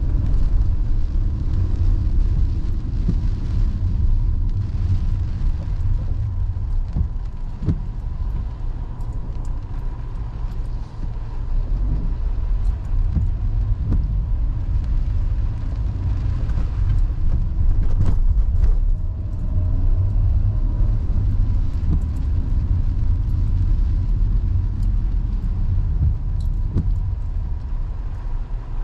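Inside a car driving slowly on wet streets: a steady low rumble of engine and tyre noise, with windshield wipers sweeping across the rain-wet glass now and then.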